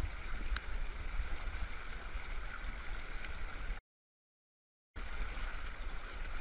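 Shallow mountain-river current rushing steadily past a wader's legs, with a low rumble underneath. The sound cuts out completely for about a second midway, then returns unchanged.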